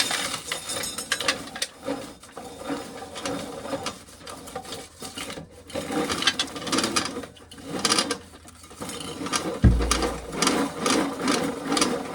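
Corn sheller stripping kernels from ears of corn: a continuous rasping, ratcheting clatter as the toothed wheel grinds the cobs and the kernels rattle down. There is a dull thump about ten seconds in.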